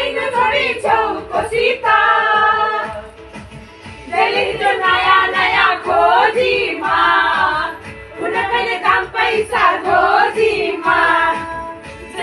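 Women's voices singing a song together in phrases, with short lulls about three and eight seconds in.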